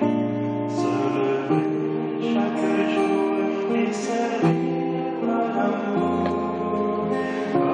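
A choir singing, several voices holding long notes together and moving from chord to chord.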